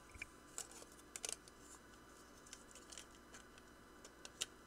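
Near silence with a few faint, light clicks and taps from small circuit boards and parts being handled on a workbench. The sharpest tick comes near the end.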